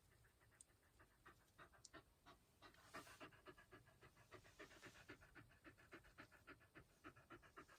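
Shiba Inu breathing quickly and rhythmically in short, faint puffs, about five a second, growing stronger about three seconds in.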